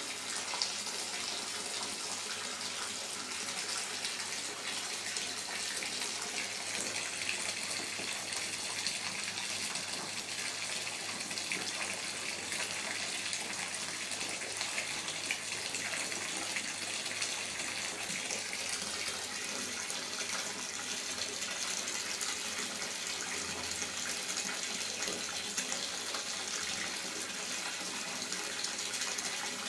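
Bath tap running steadily, filling a bathtub: the stream pours into a thick mound of bubble-bath foam.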